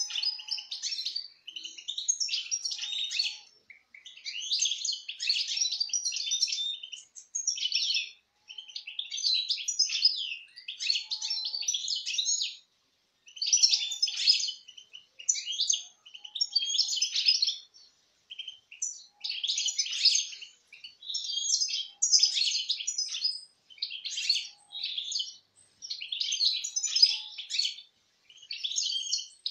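European goldfinches singing: phrases of quick twittering song a few seconds long, separated by brief pauses.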